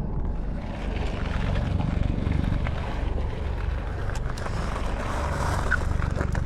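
Wind buffeting a GoPro camera's microphone while cycling, a steady low rumble.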